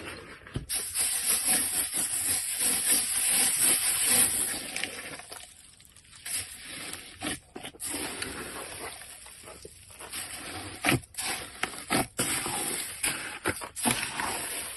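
A very large batch of slime being kneaded and squished by hand: a continuous wet, squishy noise with sharp clicks now and then, mostly in the second half.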